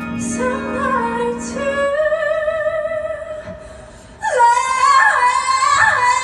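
Female vocalist singing long held notes over backing music; about four seconds in it jumps louder as she belts a sustained high note.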